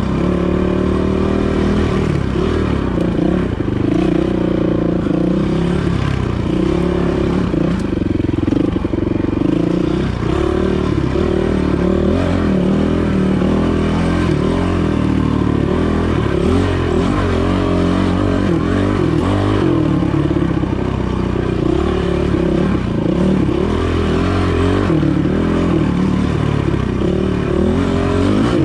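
Dirt bike engine revving up and down without pause, its pitch rising and falling with the throttle as it is ridden over technical single track.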